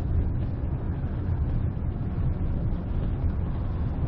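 Steady low rumble of wind buffeting the microphone of a moving bicycle, with road noise underneath.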